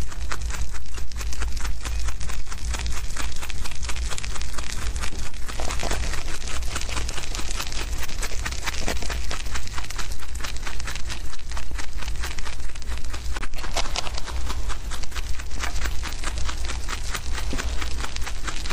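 Rabbits chewing fresh grass leaves, a fast continuous crunching of many small clicks over a steady low rumble.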